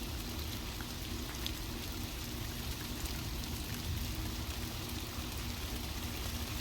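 Steady rain, an even hiss with a few faint drop ticks.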